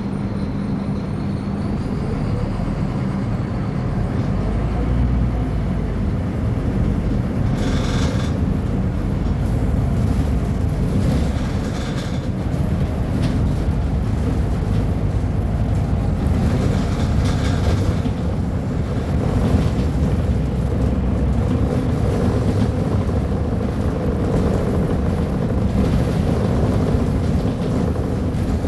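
Scania K310UB bus diesel engine running steadily, a continuous low drone, with brief clatters from the Caio Millennium BRT body now and then.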